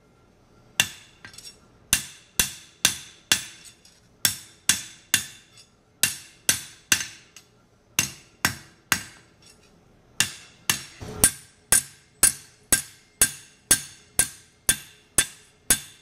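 Ball peen hammer striking a 1/8-inch mild-steel flat bar on a steel anvil, sharp ringing blows about two a second, quickening to nearly three a second in the second half, with a couple of brief pauses. The blows dimple and flatten the bar to give it a hand-forged texture.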